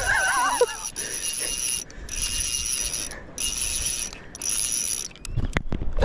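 Fly reel's drag paying out line with a steady high whine in four spurts of about a second each, with short breaks between: a hooked tarpon running.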